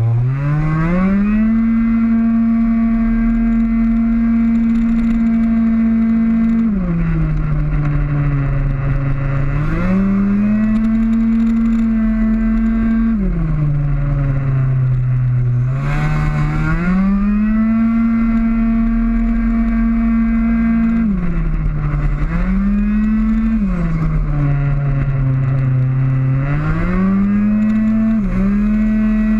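Racing scooter's two-stroke single-cylinder engine at high revs on track, heard onboard. The revs hold high, then drop sharply as the throttle is closed for a corner and climb again on the way out, four or five times over.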